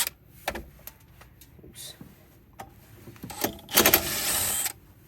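Scattered clinks and knocks of tools against car parts, then a loud rushing noise lasting a little over a second, about three and a half seconds in.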